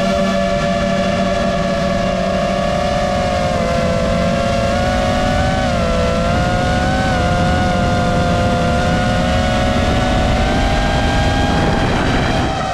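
Electric motors and propellers of a Nazgul 6 FPV quadcopter in cruising flight: a steady high whine that drifts slightly up and down in pitch as the throttle changes, over a low rushing noise.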